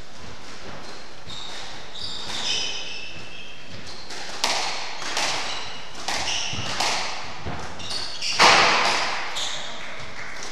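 Squash rally in a hall: the ball is struck by rackets and smacks off the walls about once a second, each hit ringing briefly. Shoes squeak on the wooden court floor in between. The first couple of seconds are quieter, the rally hits start about 4 s in, and the loudest smack comes about three-quarters of the way through.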